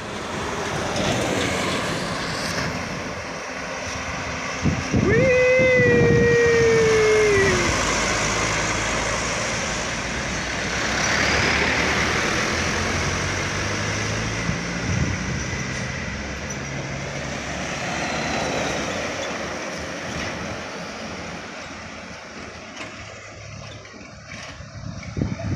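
Loaded trucks and other traffic passing close by, engines running and tyres on asphalt. About five seconds in, a loud tone jumps up and then slides down in pitch over about two and a half seconds.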